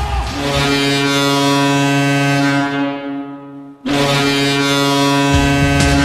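Ice hockey arena goal horn, the Florida Everblades' horn: a deep, steady blast of about three and a half seconds, a brief break, then a second blast of about a second and a half. Rock music with drums starts near the end.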